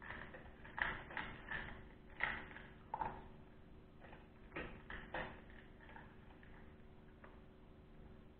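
Russo-European Laika puppy eating dry kibble from a stainless steel bowl: irregular crunches and clinks against the bowl, coming thick for about five seconds and then thinning out.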